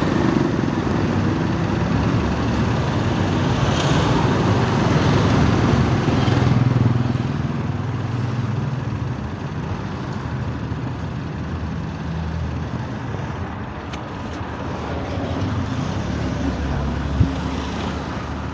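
Street traffic dominated by motorcycle engines passing close by, loudest in the first several seconds and then easing to a lower steady run.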